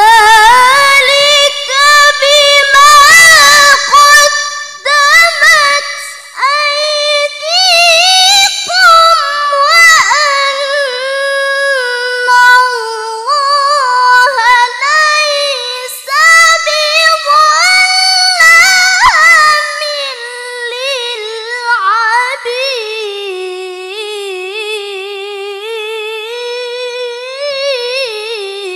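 A young woman's solo melodic Qur'an recitation (tilawah) delivered as one long phrase with rapid ornamented runs. The voice is held high and loud for most of the phrase, then sinks lower and softer over the last several seconds.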